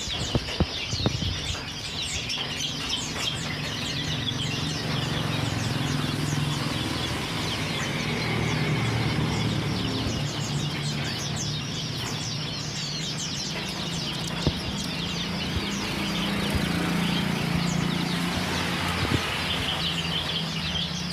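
Many birds chirping rapidly and continuously, over a steady low hum, with a few sharp clicks near the start.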